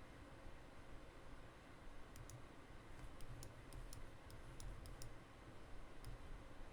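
Faint, irregular clicks from computer use, about a dozen scattered through, over a low background hum.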